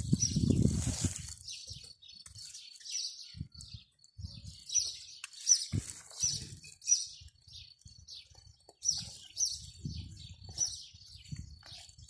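A small bird chirping over and over, short high chirps about two a second, with low rumbling bursts, loudest in the first second or so.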